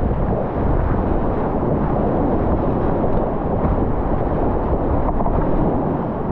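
Whitewater rushing past a kayak, mixed with wind buffeting the camera's microphone: a loud, steady wash of noise with no pauses.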